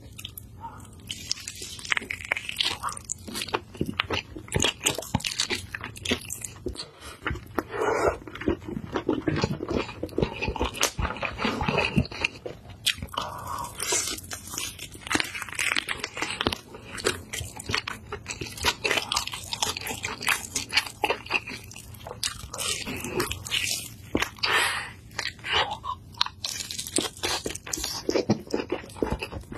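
Close-miked eating: biting into and chewing a sauce-glazed chicken drumstick, with many irregular crunching and crackling bites and chewing sounds, no talk.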